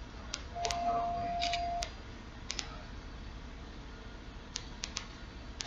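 A steady single-pitch beep about a second long, starting about half a second in: a speaker test tone from the BMW E64's audio system. Sharp short clicks are scattered around it.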